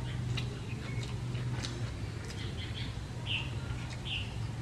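Eating by hand: wet mouth clicks and lip smacks from people chewing rice and curry, over a steady low hum. Three short high-pitched sounds come in the second half.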